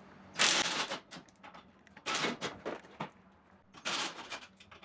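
Cordless drill with a 12 mm socket running in three short bursts of about half a second each, backing out the seat-back bolts on a Yamaha golf cart.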